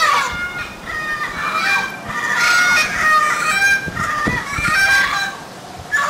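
Amazon parrots calling to keep in contact: a run of loud, repeated, honking calls that bend up and down in pitch, partly overlapping, with a short lull near the end before another call.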